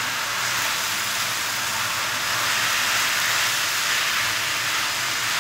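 Sliced bottle gourd and anchovies sizzling in a hot wok as they are stir-fried with a spatula: a steady, even hiss.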